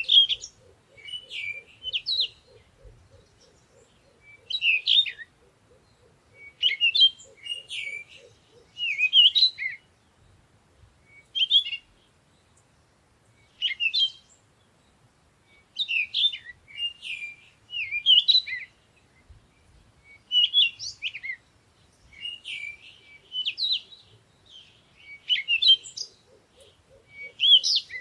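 Songbirds chirping and singing in short, quick phrases that come every second or two. Underneath, a faint low, rapid pulsing trill runs through the first third and returns near the end.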